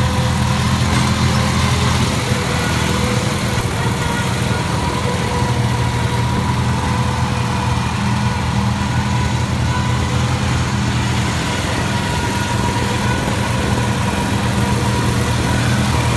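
Engine of an MTD riding lawn mower running steadily while the mower is driven over rough ground, its low, even note holding much the same throughout.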